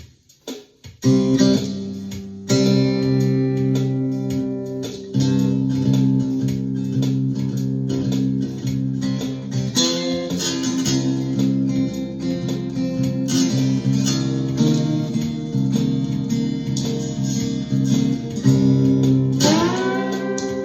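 Ovation Koa thinline acoustic-electric guitar in open C tuning, played with a slide: ringing chords and single notes, with a slide up in pitch near the end.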